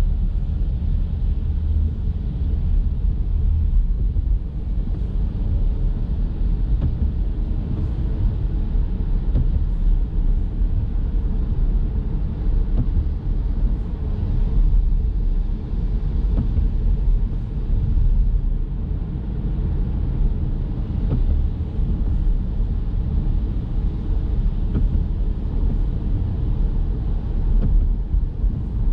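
Steady low rumble of road and tyre noise from a Chevrolet Bolt electric car driving on wet road in light rain, with a faint hiss over it and no engine note.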